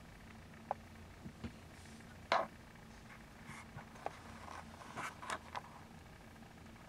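Kitten purring faintly and steadily, with soft scratchy rustles and a few sharp clicks over it, the loudest about two seconds in.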